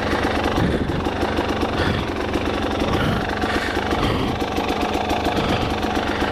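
Dirt bike engine running, its note rising and falling in short spells as the throttle is worked over slippery ground.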